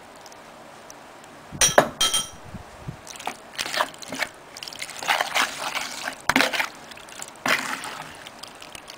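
A spoon stirring raw chicken pieces into green curry paste and oil in a bowl, making a run of irregular wet squelching and scraping strokes. Two sharp knocks come just before the stirring, about two seconds in.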